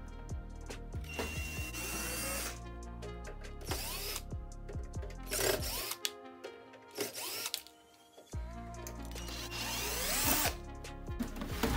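Cordless drill-driver running in several short runs as it backs screws out of the back panel of a mini hi-fi, over background music.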